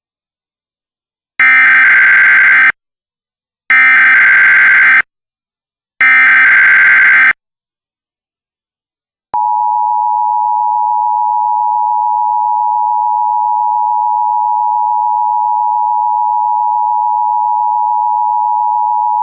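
Emergency Alert System tones. Three harsh, buzzing bursts of EAS digital header data, each a little over a second long. After a short pause comes the steady two-tone EAS attention signal (853 and 960 Hz), which holds on, announcing the start of a new emergency alert.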